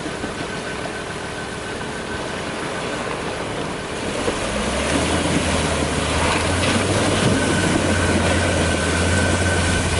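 Ford Ranger pickup driving through a shallow river crossing, over the steady rush of flowing water. About halfway through, the engine note grows louder and steadier as the truck pushes through the water and climbs out onto the gravel.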